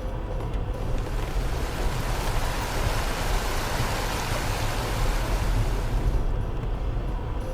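Land Rover Freelander 2 driving over a rough track, heard from inside the cabin as a steady low rumble. About a second in a loud rushing hiss rises over it, like water or brush against the car, and it dies away about a second before the end.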